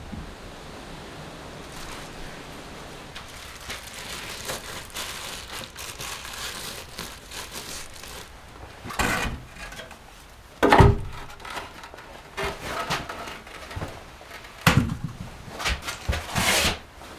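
Crinkling and rustling handling noises, followed by several sharp knocks and clatters, the loudest about eleven seconds in.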